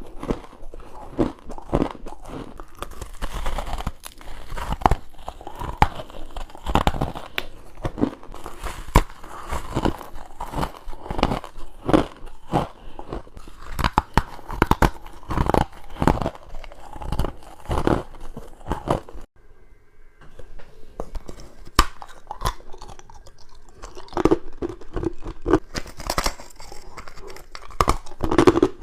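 Close-miked biting and chewing of frozen humidifier frost and ice, a dense run of crisp, crackling crunches. The crunching breaks off briefly about two-thirds of the way through, then resumes.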